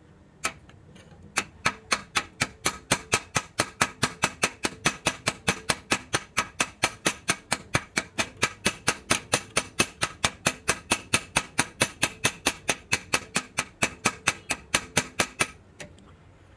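Rapid, evenly spaced tapping, about four strikes a second, starting after a single tap and stopping shortly before the end.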